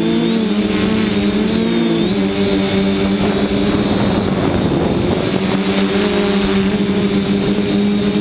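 Multirotor drone's electric motors and propellers heard from on board: a steady hum with a high motor whine, wavering a little in pitch in the first couple of seconds. A rushing air noise swells over it for a couple of seconds in the middle.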